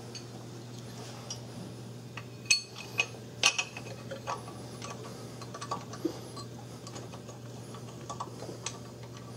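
Irregular light metal clicks and clinks as a thread-locked camshaft sprocket bolt and tools are handled and the bolt is threaded into the sprocket, the loudest clinks coming in a cluster between about two and a half and three and a half seconds in. A steady low hum runs underneath.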